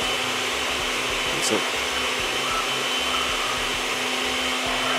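Steady fan-like rushing noise with a low hum, from commercial kitchen equipment.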